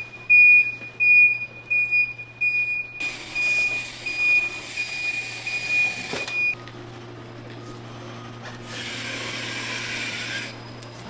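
Electronic beeping from a production machine: a high single-pitch beep repeating about twice a second, stopping about six and a half seconds in. After that a steady machine hum, with a hiss for about two seconds near the end.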